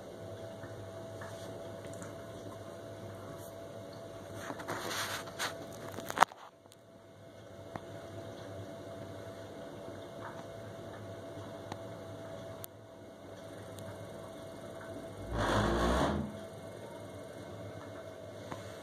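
Worcester Bosch 29CDi Classic combi boiler running with a steady hum. A hissing burst about five seconds in ends in a sharp click, and about fifteen seconds in comes a short, deep rumble as the gas switches inside. This is the rumbling fault that ends in the boiler's EA error code.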